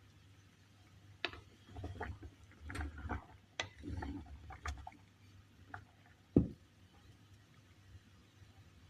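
Kitchen cookware and utensils being handled: a run of light clicks, clinks and soft knocks, then one sharp knock about six and a half seconds in.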